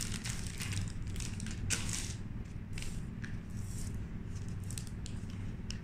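A printed packaging pouch crinkling and rustling as it is emptied, then the folded card of an insect trap being handled and opened out, in irregular short crackles. A steady low hum runs underneath.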